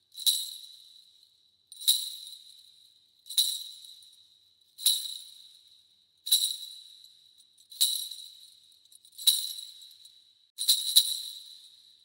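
Kagura suzu, a Shinto bell tree of small metal crotal bells, shaken about once every second and a half. Each shake gives a bright jingle with a high ringing tone that dies away before the next; the last shake, near the end, comes as two quick jingles.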